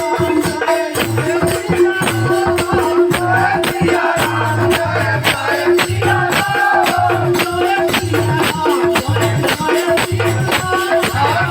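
Devotional bhajan music: a melody line over a steady held drone note, with a fast, even beat of jingling or shaken percussion, about three strokes a second.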